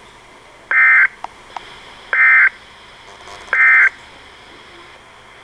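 Three short bursts of warbling two-tone digital data, about a second and a half apart, over a faint hiss: the Emergency Alert System's SAME end-of-message code that closes a severe thunderstorm warning broadcast.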